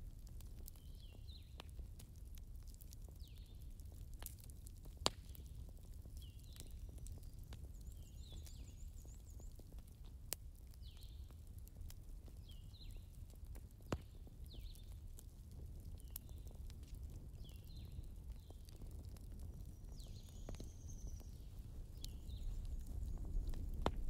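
Recorded fireplace crackling played from a digital fireplace: a low steady rumble with scattered sharp pops, the loudest about five, ten and fourteen seconds in. Faint high chirps recur every second or two over it.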